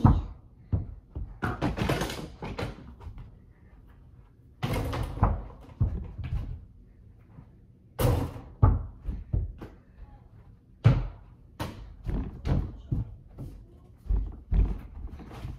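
A basketball thudding and bouncing: about ten irregular heavy knocks, a second or two apart, some in quick pairs.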